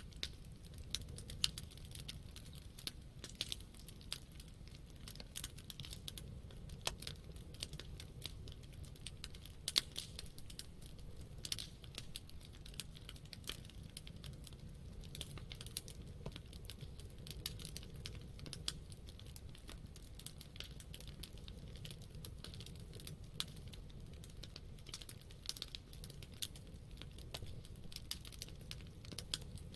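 Campfire wood burning, crackling with a steady stream of sharp pops and snaps over a low rumble. A few pops stand out louder, about a second in and near the ten-second mark.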